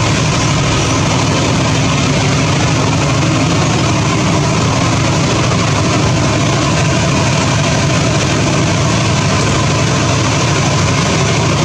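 Diesel train engine idling steadily: a constant low engine hum under a wash of noise, with no change in pitch or level.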